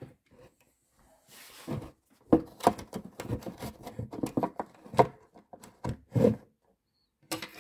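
Irregular plastic clicks, taps and rubbing as a battery pack is pressed into a toy radio-controlled boat's bow compartment and a plastic retaining clip is fitted over it, most of them packed into the middle few seconds.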